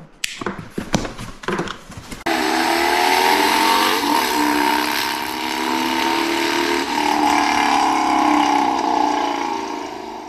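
Cardboard box being handled and cut open, with a few sharp scrapes and crackles. About two seconds in, a motorcycle engine starts suddenly and runs steadily, its pitch rising and falling a little, then fades out near the end.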